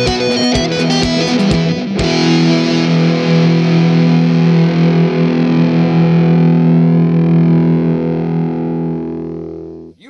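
Closing theme music: rock with distorted electric guitar and drums. The drums stop about two seconds in and a final guitar chord rings out, slowly fading away near the end.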